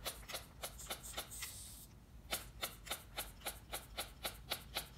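Mityvac hand pump being squeezed over and over, clicking about four times a second as it pumps air into an outboard lower-unit gearcase to pressure-test its seals. About a second and a half in there is a brief hiss and a short pause before the pumping starts again.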